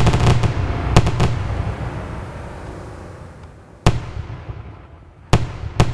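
Fireworks going off: a dense volley of bangs at the start and two more about a second in, then a long rolling echo that fades. Single sharp bangs follow about four seconds in and twice near the end.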